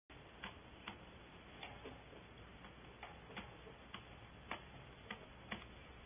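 Faint, irregular sharp clicks, about two a second, some louder than others, over a steady low hiss.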